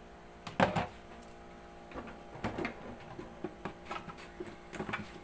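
Kitchen cookware handling: a loud clunk about half a second in, then scattered light knocks and scrapes.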